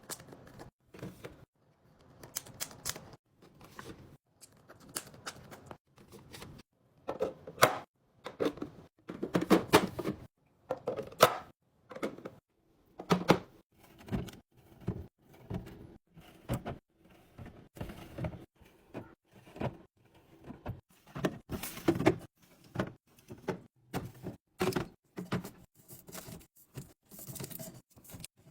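Snack packs and plastic containers being handled and set into a fridge drawer: a long run of irregular taps, clacks and knocks, with some crinkling of packaging.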